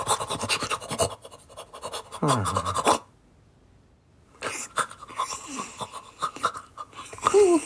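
Cartoon puppy panting rapidly and excitedly, a vocal sound effect, with a falling groan about two seconds in. The panting breaks off for about a second and a half, then resumes with a short yelp near the end.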